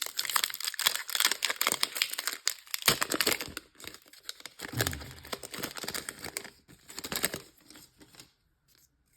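Foil wrapper of a Pokémon card booster pack being torn open and crinkled, a dense crackling rustle that dies away near the end.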